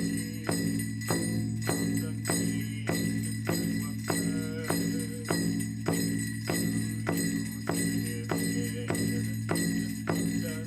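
Large powwow drum beaten in a steady, even beat, about one and a half strokes a second, with a steady ringing over the beats.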